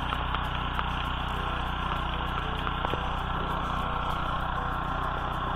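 Engine of an Oka walk-behind tractor running steadily under load as its six rotary tiller blades cultivate garden soil.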